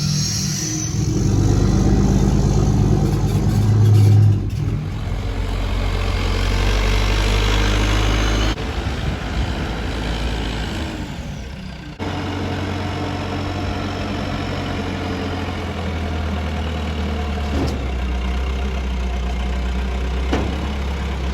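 A vehicle engine running steadily, its sound changing abruptly twice partway through.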